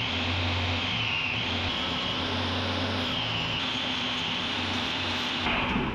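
Belt grinder running with steel pressed against the sanding belt: a steady grinding noise with a high whine that wavers in pitch over a low motor hum. The grinding stops near the end.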